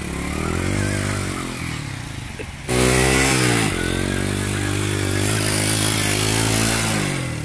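Small Chinese motorcycle's engine revving hard under load while the rear wheel spins and digs into the dirt. The revs climb, sag, then jump sharply louder about three seconds in, ease back a second later, hold high and drop near the end.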